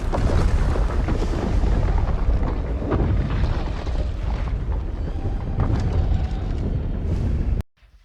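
A long, loud explosion-like sound effect, deep and heavy, starting suddenly and cutting off sharply near the end.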